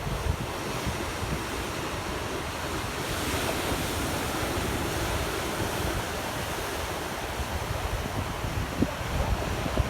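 Ocean surf washing steadily onto the shore, swelling about three seconds in, with wind buffeting the microphone.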